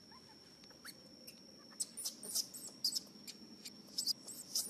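Newborn baby macaque crying in short, high-pitched squeaks, several a second, starting about two seconds in, over a steady high-pitched whine.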